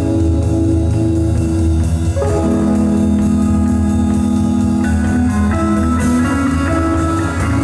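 A rock band playing an instrumental song live, with sustained organ-like keyboard chords over electric guitar and a drum kit. The chord changes about two seconds in and again about five seconds in.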